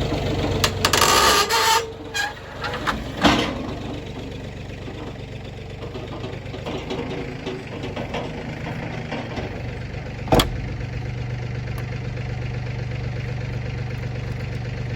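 A motor running steadily with a low hum. Near the start comes a loud burst about a second long, followed by a few sharp metallic clanks, and there is one more sharp clank about ten seconds in.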